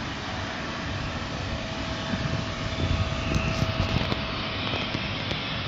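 Boeing 777 jet engines running at taxi power: a steady rushing noise with a faint steady whine that stops near the end. Gusty low noise swells between about two and four seconds in.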